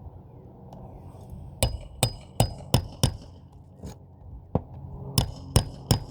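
Hammer blows on metal, each with a short ring, in two quick runs of about four strikes with a couple of single blows between them.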